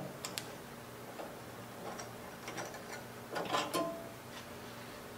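Hand screwdriver backing small screws out of a metal bandsaw blade guard: faint scattered clicks and ticks of steel on steel, with a brief cluster of small metallic clinks about three and a half seconds in.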